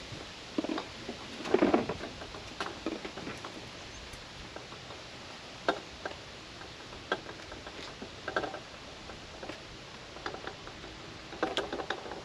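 Irregular light knocks, taps and rustles, as of objects being handled and set down, with a louder cluster about a second and a half in and another near the end.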